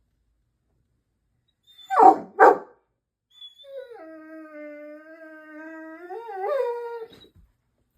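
Great Dane puppy barking twice in quick succession, then giving one long howl that wavers in pitch near its end.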